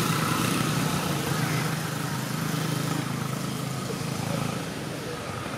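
A motor engine running steadily with a low hum, easing off a little near the end.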